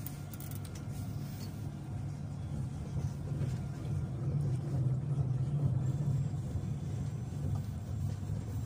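Tram running along its rails, heard from inside the front cab: a steady low rumble that swells a little about four seconds in and eases slightly near the end.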